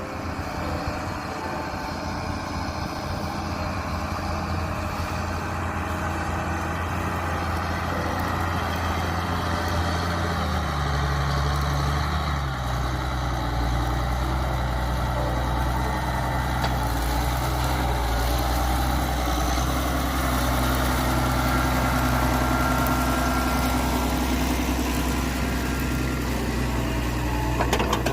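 A tractor engine running steadily at a low, even note. Its speed shifts a little about ten to twelve seconds in, then holds steady again.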